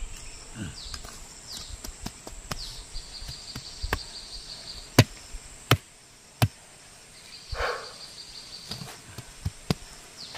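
A small hand hoe chopping into garden soil: scattered sharp strikes, the loudest three evenly spaced about two-thirds of a second apart midway through. An insect trills steadily in two stretches.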